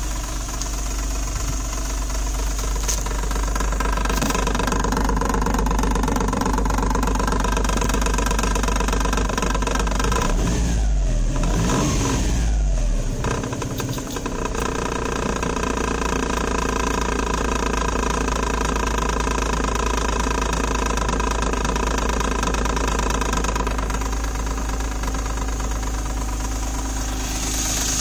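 Autozam AZ-1's mid-mounted engine running, with a clattering (カタカタ) rattle from the bulkhead behind the driver's seat where the ECU is mounted. The engine note changes briefly around the middle. The rattle comes from engine vibration shaking the rusted-off mounting stay of an air-conditioning pipe behind the ECU, so that it knocks against the bulkhead.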